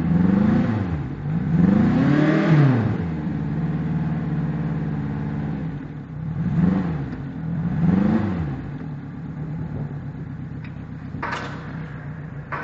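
Yamaha 90 outboard engine being blipped: its pitch rises and falls four times, then it settles back to a steady idle. The owner puts its running down to dirty fuel injectors after 1400 hours. There is a sharp click near the end.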